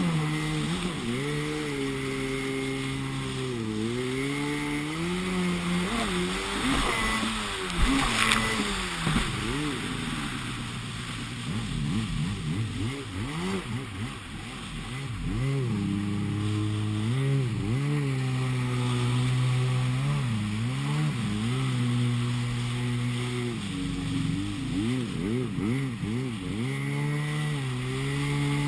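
Yamaha WaveBlaster 701 jet ski's two-stroke twin engine revving up and down under hard riding, the throttle dropping off and coming back several times. There is a loud splash of spray about eight seconds in.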